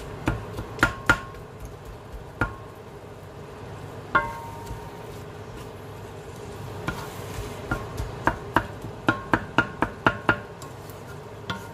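A wooden spatula knocks and scrapes against a nonstick wok while stirring minced meat: scattered sharp taps, some with a short metallic ring, then a quick run of taps a few seconds before the end.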